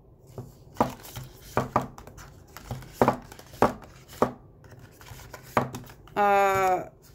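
Small cardboard nail polish boxes being picked up and set down, a series of light taps and knocks with some sliding. Near the end a voice gives a short hum.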